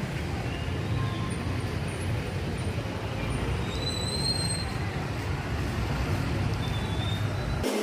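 Steady rumble of busy city street traffic, passing vehicles with a low, even road noise.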